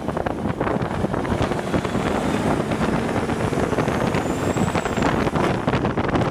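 Peterbilt 377 tanker truck's diesel engine running alongside at road speed, its steady drone mixed with tyre and wind noise. A faint high whistle rises and falls about four seconds in.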